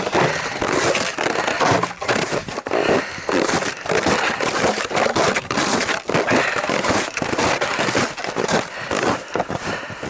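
Footsteps crunching through snow at a steady walking pace.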